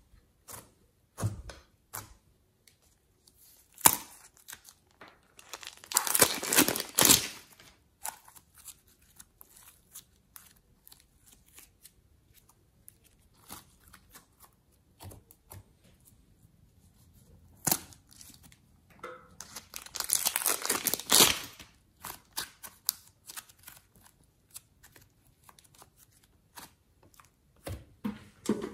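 Plastic clay piping bags crinkling as they are handled and squeezed, in two longer bursts of rustling with scattered small clicks and pops between.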